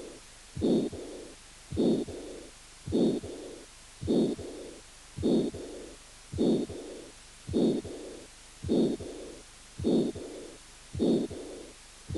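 Heart sounds heard through a stethoscope in double aortic valve disease: each beat carries a loud systolic ejection murmur of aortic stenosis, which predominates, followed by a fainter early diastolic murmur of aortic regurgitation. The beats come evenly, a little under one a second.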